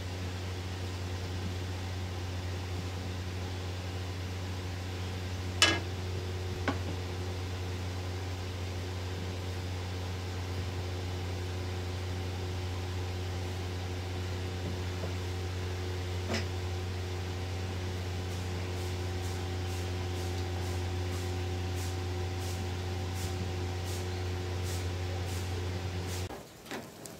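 Steady motor hum of a kitchen appliance or fan, with a few sharp clicks of the wooden spatula knocking the metal pan: two about six seconds in and one about sixteen seconds in. The hum cuts off suddenly near the end.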